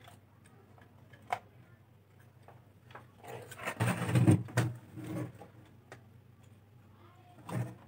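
A CRT television's circuit board being handled and turned over on a workbench: a single light click, then a couple of seconds of knocking and scraping as the board is moved.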